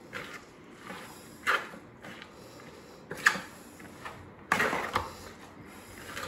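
Black serving spoon tossing shredded cabbage and onion in a large plastic Tupperware bowl: a few rustling, scraping strokes, with a sharp knock about three seconds in and a longer scrape just after.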